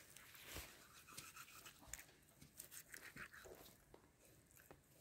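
Faint scraping and small clicks of a knife cutting meat away from a pork carcass.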